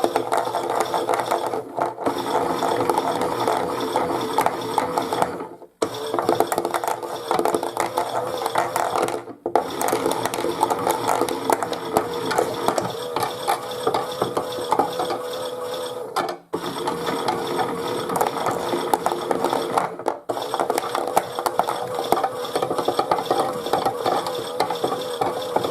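Chad Valley toy washing machine's small motor and plastic gears running with a fast, dense clicking as the drum tumbles slowly on the main wash cycle, cutting out briefly several times.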